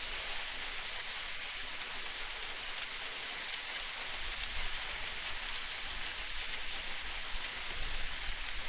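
Steady, even hiss of rain-like water noise, with a soft low rumble underneath that swells slightly a couple of times; no distinct creaks stand out.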